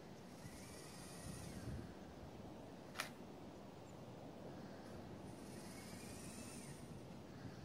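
Small motors of a 3D-printed robotic panoramic head whir faintly as they rotate a DSLR between frames, in two moves of about two seconds each. Between the two moves, about three seconds in, comes a single sharp click of the DSLR shutter.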